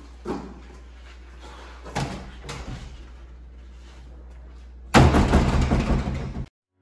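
Wooden front door slammed shut: a loud, noisy burst about five seconds in that lasts over a second and cuts off suddenly, after a few light footsteps and knocks.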